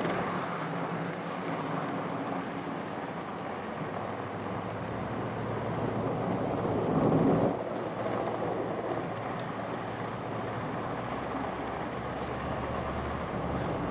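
A truck's engine running steadily, with a louder surge about seven seconds in.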